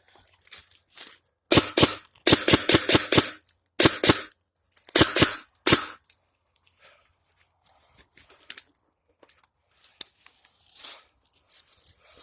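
Airsoft guns firing in the open: several loud, sharp volleys in the first half, one a quick string of about seven shots in a second, followed by quieter crackle and rustling.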